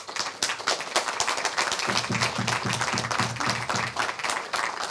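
Audience applauding, a dense crowd of hands clapping.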